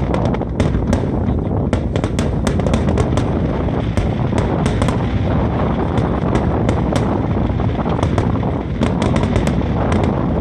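Aerial fireworks going off in a dense barrage: many sharp cracks over a continuous rumble of booms.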